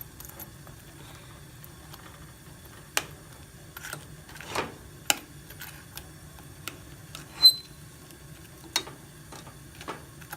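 A cooking utensil clicks and taps against a pan while pieces of chicken are turned over in gravy. The taps come irregularly, and the loudest, a ringing metal tap, falls about seven and a half seconds in. A low steady hum runs underneath.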